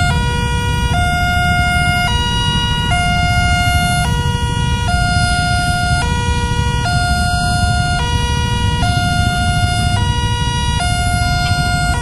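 Railway level crossing warning alarm sounding, two tones taking turns about once a second, high then low. It is the signal that the barrier is closed and a train is approaching.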